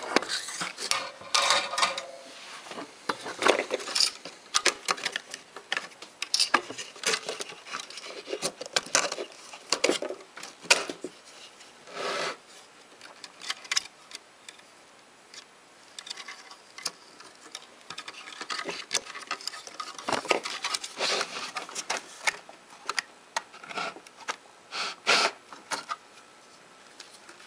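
Irregular clinks, clicks and knocks, with a short scrape, from a metal electronics enclosure and its parts being handled and fitted back together.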